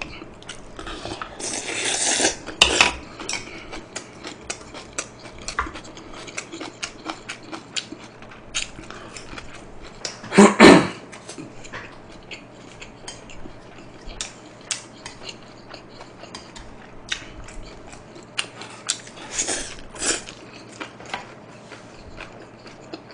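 Close-miked eating: chopsticks and a spoon clinking against bowls, with chewing and many small mouth clicks and smacks. About ten seconds in comes one brief, louder sound from the eater.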